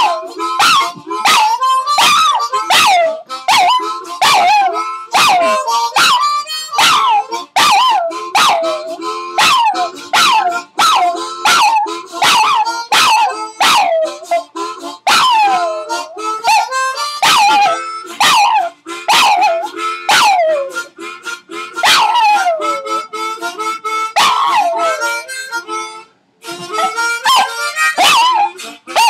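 Small dog howling along to music, a string of short falling howls about one a second over steady held musical tones, with a brief break near the end.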